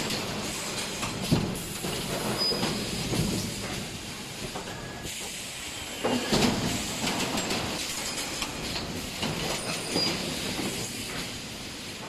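EPS 3D wire-mesh panel production machinery running, with steady hiss and irregular metallic clanks and rattles. The clatter swells about a second and a half in and again about six and a half seconds in.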